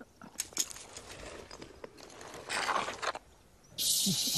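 Scraping and crunching of dry soil as a tarantula burrow is dug out and a stick is worked into it, with a few sharp clicks. Near the end a loud, steady hiss sets in, the loudest sound here.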